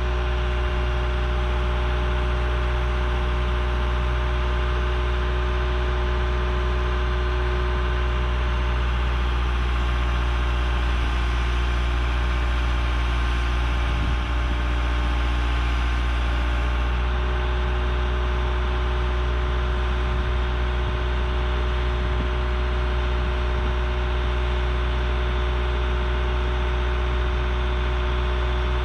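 Backhoe engine running steadily at a constant speed: an even low drone with a steady whine over it.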